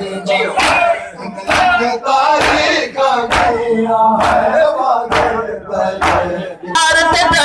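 A crowd of mourners beating their chests in unison (matam), a sharp slap about once a second, between the voices of men chanting a Punjabi noha (lament) over a loudspeaker. Near the end the singing grows fuller and more continuous.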